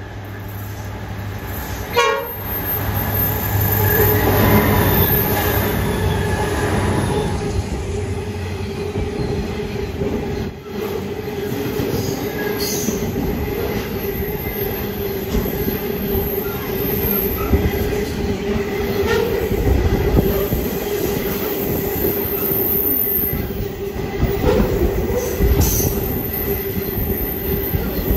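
Freight train led by three 81 class diesel-electric locomotives approaching and passing close by. The low engine rumble builds over the first few seconds, with a brief sharp sound about two seconds in. A long string of container wagons then rumbles and clatters over the rails, with a steady wheel squeal and scattered knocks.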